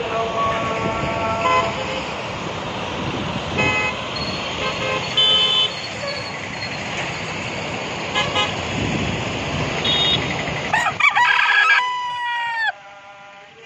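Road traffic with several short horn toots, then a rooster crowing once near the end, its call falling in pitch as it finishes.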